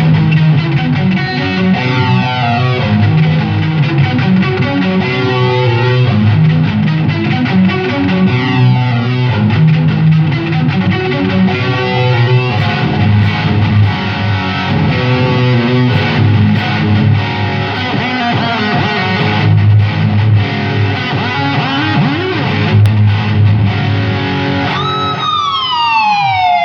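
Electric guitar played through a Valeton Dapper Dark Mini pedal set for high-gain distortion: heavy riffing on low notes. Near the end a held note dives steeply in pitch.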